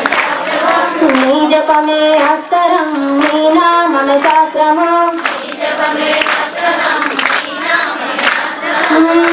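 Group of women singing a Navaratri devotional song in unison, led by one voice on a handheld microphone, with hand claps keeping time.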